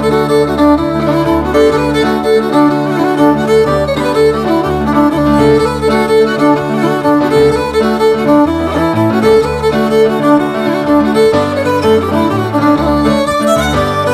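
Fiddle music, bowed melody over a moving bass line.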